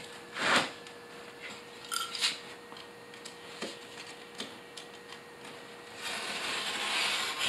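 A metal straight edge is set down on a sheet of gypsum wallboard with a knock, followed by a few light taps. Near the end, a razor knife is drawn along the straight edge, scoring the paper face of the wallboard with a scratchy hiss that lasts about a second and a half.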